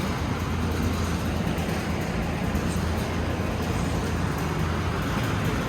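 Steady low rumble of vehicle noise, with no distinct knocks or strikes.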